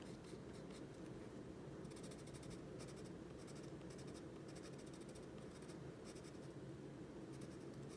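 Prismacolor Premier Colourless blender pencil rubbing on paper in runs of short, quick strokes, blending colored-pencil layers: a faint scratching over a low steady hum.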